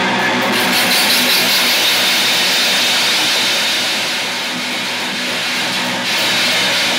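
A rock band's loud instrumental passage: distorted electric guitar and bass holding chords under a dense, hissing wash of cymbals, with no singing.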